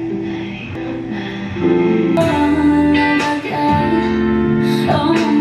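Pop music with plucked guitar, getting louder about one and a half seconds in.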